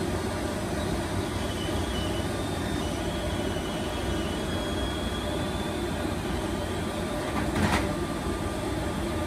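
Agfa Arkana 125 plate processor running steadily as its rollers feed a processed printing plate out onto the exit table. A faint high whine comes and goes, and a brief knock sounds about seven and a half seconds in.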